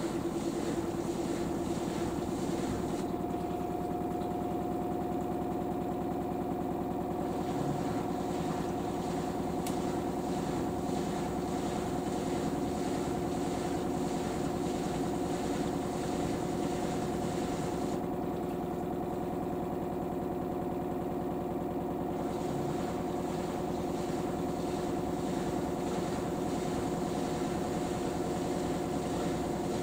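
LG AiDD Steam F4V910BTSE direct-drive washing machine in its final spin, running at a steady speed. It makes a steady hum, and a second, higher tone joins about three seconds in.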